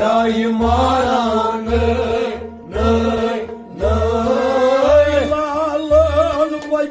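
Kashmiri Sufi song: a voice singing an ornamented, wavering melody over accompaniment, with a steady low drum beat about twice a second.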